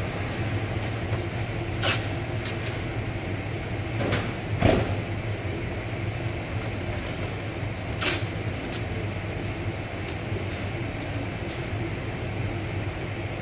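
Steady low hum of workshop machinery with a few knocks and clatters, the loudest about four and a half seconds in, and a short hiss about eight seconds in.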